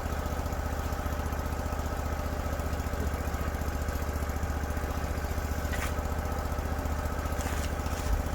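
A small engine idling steadily, with a fast even pulse.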